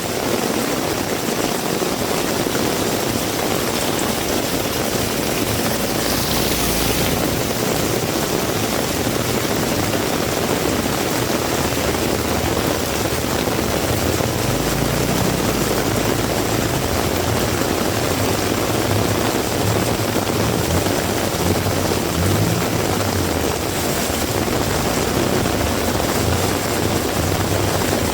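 Heavy rain falling steadily, a dense even hiss, with a low rumble underneath that grows stronger from about halfway through.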